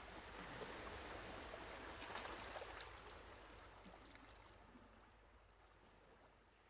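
Faint rushing water, like a stream or gentle surf, fading slowly away to near silence.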